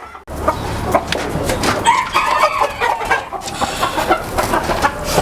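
Many chickens clucking and calling over one another, with roosters crowing among them.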